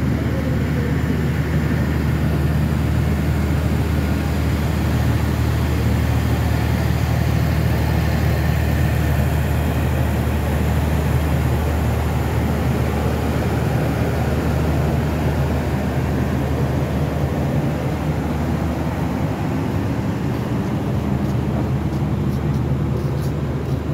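Steady low drone of the diesel generator sets in a passenger train's power van, running without a break.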